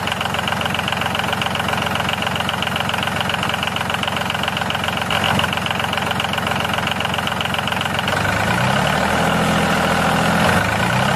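Steady engine-like running sound with a fast, even chug, which deepens about eight seconds in.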